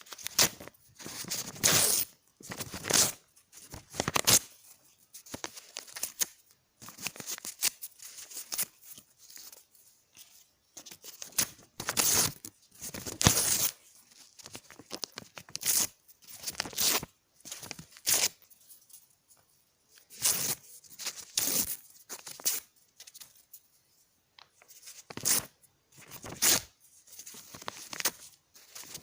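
Paper being torn by hand, a long run of separate rips, each lasting from a split second to about a second, with short pauses between them.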